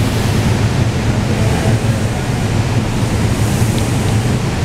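Stationary SEPTA Regional Rail electric train at the platform, its onboard equipment giving a steady low hum under an even rushing noise.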